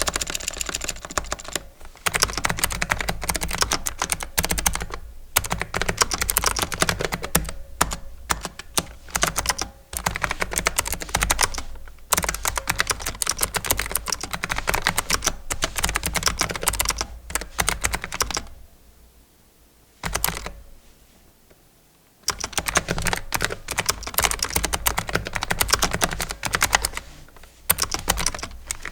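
Continuous typing on an AZIO Retro Classic mechanical keyboard: rapid key clicks with a hollow, pingy ring. Typing breaks off for a few seconds about two-thirds through, then starts again.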